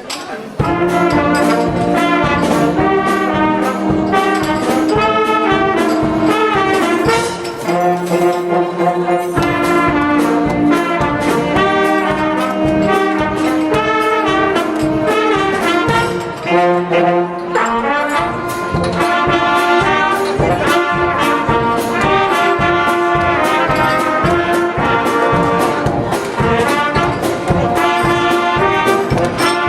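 Band with a brass section of trombones and trumpets striking up a tune about half a second in and playing on over a steady beat.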